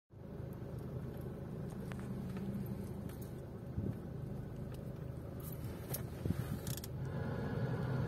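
Hyundai i40 diesel heard from inside the cabin while rolling slowly, the engine a steady low hum, with a few light ticks and creaks scattered through it.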